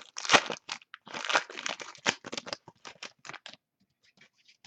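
A trading-card pack wrapper being torn open and crinkled by hand: a quick run of crackling and ripping that stops about three and a half seconds in.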